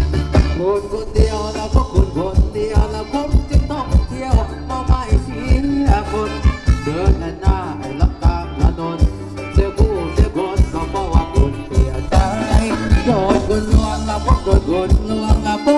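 Live Thai ramwong band music amplified through PA speakers: a steady, quick drum beat under a bending melody.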